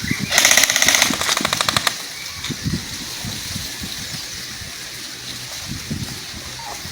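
Airsoft gun firing one rapid full-auto burst of about a second and a half, beginning a moment in. Lower rustling and thumps follow.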